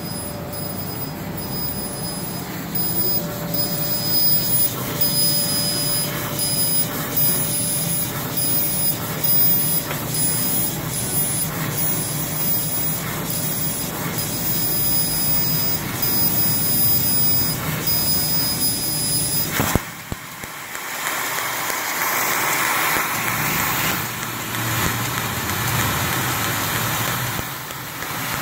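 Fiber laser cutting machine at work on steel sheet. For the first twenty seconds the cutting head moves in short strokes, with brief pulses about twice a second and a high whine that keeps switching on and off. About twenty seconds in the sound changes suddenly to a steady hiss of assist gas as the beam cuts through the sheet with oxygen, throwing sparks.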